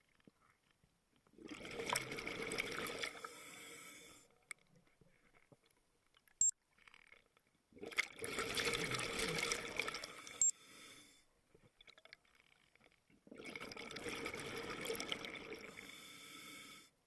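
Scuba diver's exhaled bubbles rushing from the regulator, three breaths about six seconds apart, each lasting about three seconds, with quiet inhales between. Two sharp clicks fall between the breaths.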